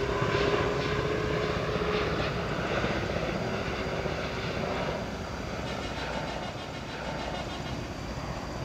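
Boeing 787-9 jet airliner's engines on final approach with the gear down: a steady, distant jet rumble with a faint whine, slowly fading.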